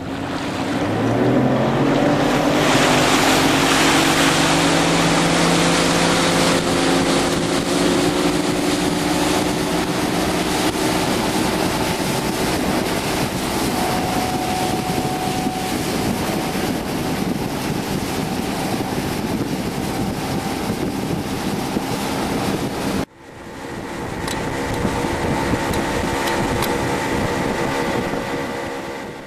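Boat's 60-horsepower outboard motor throttling up to pull a wakeboarder out of the water, its pitch rising over the first few seconds, then running steadily at speed over rushing wind and spray. The sound drops out briefly about 23 seconds in and the engine carries on.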